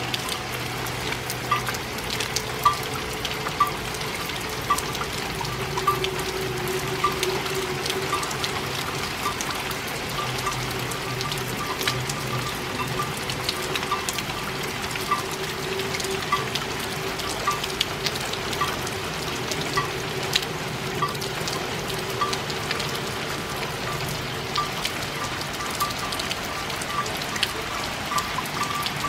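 Steady rain falling, with many separate drops ticking on a surface, and quiet music underneath.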